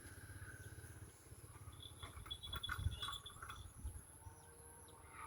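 Faint outdoor ambience: a few short, high chirping calls about two to three and a half seconds in, over a low fluttering rumble.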